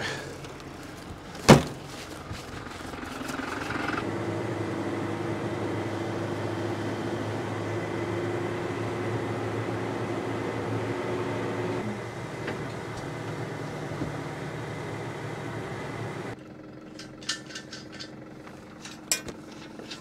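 Tractor engine running, heard from inside the cab. It builds up about four seconds in as the tractor moves and eases back near twelve seconds. A sharp clank comes about a second and a half in. Near sixteen seconds the sound drops abruptly to a quieter hum with a few light clicks and knocks.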